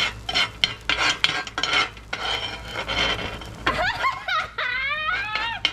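Metal spatulas scraping and clinking rapidly on a stone-coated griddle as egg fried rice is turned and pushed into shape. For the last two seconds a high person's voice rises and falls over it.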